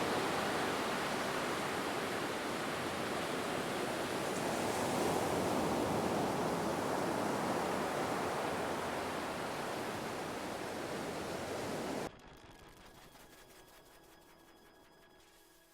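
A steady, even rushing noise, like outdoor surf or wind, swelling slightly midway and cutting off suddenly about twelve seconds in. Faint sustained music tones follow near the end.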